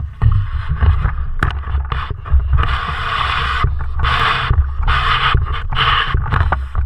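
Handling noise from a homemade underwater pole camera: a continuous low rumble with irregular thumps, and repeated bursts of rushing, scraping noise lasting up to about a second each.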